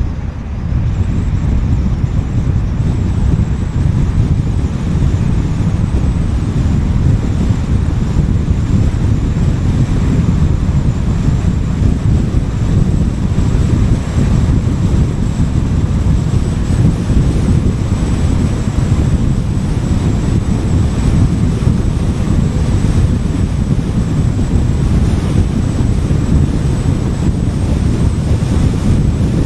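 Steady low rumble of a car driving along a highway: road and wind noise, even and unbroken throughout.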